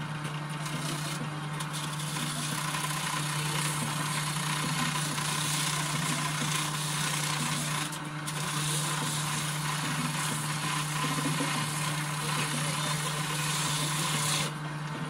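Steady rasping of abrasive work on a part, with two brief breaks, about one second and eight seconds in, stopping shortly before the end.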